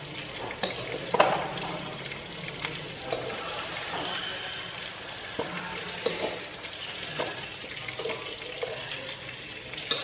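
Whole climbing perch sizzling in oil in a frying pan, with a handful of sharp clinks and knocks as a metal pot is handled over a bowl to serve soup.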